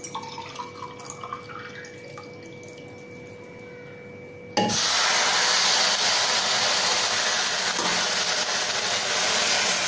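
Water poured from a plastic jug into a steel tumbler, a faint trickle rising in pitch as the tumbler fills. Then, about four and a half seconds in, a sudden, much louder steady rush of water as the tumbler is emptied into a hot steel pan of sprouted beans.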